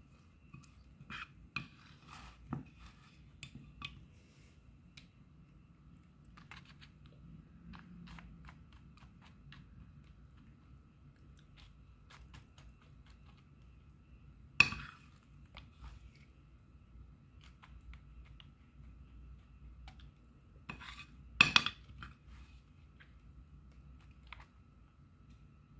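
Metal spoon scraping and tapping as a sticky chocolate crumb mixture is scooped from a plate into a plastic tray: small irregular clicks throughout, with two sharp knocks, one a little past halfway and one later on.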